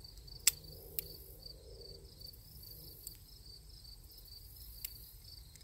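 Sharp metallic clicks from a Smith & Wesson .44 Magnum revolver being loaded, cartridges going into the cylinder and the cylinder turning; the loudest click comes about half a second in, with a few fainter ones after. Behind it, insects chirr steadily in a fast pulsing rhythm.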